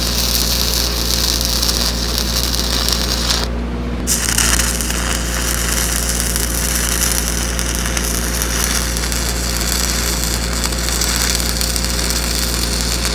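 Stick-welding arc crackling and sizzling steadily as a downhill filler pass is run on a pipe branch joint, over a steady low hum. About three and a half seconds in, the crackle briefly drops out for about half a second, then picks up again.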